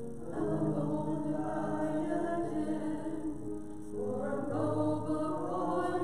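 Small mixed church choir singing in parts, holding long notes, with a brief break between phrases about four seconds in.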